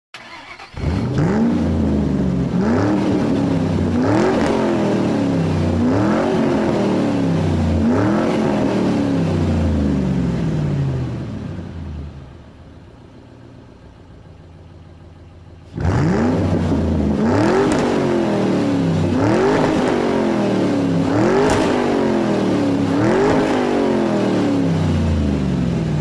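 Motorcycle engine being revved hard in repeated blips, each one climbing quickly and then winding slowly back down, about every two seconds. It drops to a quiet lull in the middle, then the revving starts again abruptly for another run of blips.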